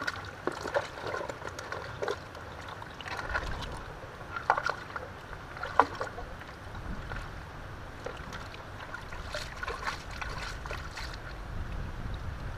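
Gold pan being worked in shallow river water: irregular sloshing and splashing as the sample is swirled and dipped, with a few sharp clicks, the loudest about four and a half and six seconds in.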